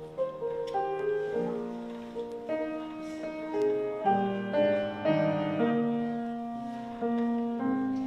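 Slow, gentle piano music: single melody notes over held lower notes, changing every half second or so.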